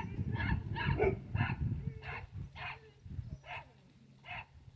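Dogs barking in a series of short, sharp barks, about nine in all and roughly two a second at first, spacing out toward the end, set off by horses passing by. A low rumble runs under the first couple of seconds.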